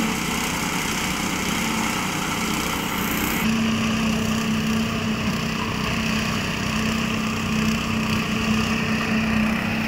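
Small engine of the concrete-pouring equipment running steadily with an even hum. The sound shifts slightly and gets a little louder about three and a half seconds in.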